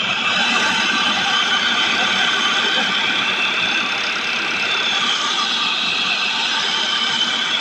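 Tata Harrier's 2.0-litre four-cylinder diesel engine idling steadily under an open bonnet, with a high whine running over it. The No.2 injector has been refitted with a new washer, and the chuck-chuck noise it made while leaking compression is gone.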